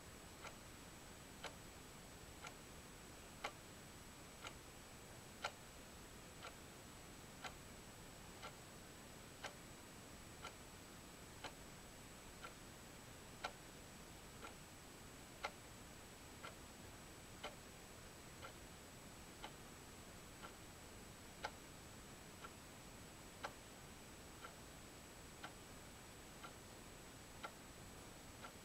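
Faint ticking of a clock, about one tick a second and evenly spaced, over low hiss and a thin, steady high-pitched whine.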